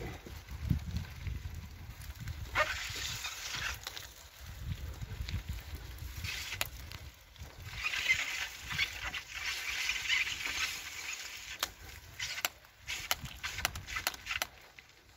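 Bicycle tyres running through wet slush and mud, with a low rumble and two stretches of hissing spray. Sharp knocks and rattles from the bike come through over rough ground, more often near the end.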